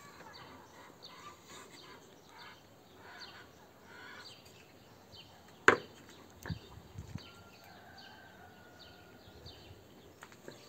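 Faint bird chirps over quiet outdoor background, with one sharp knock on wood a little past halfway and a couple of softer knocks just after it.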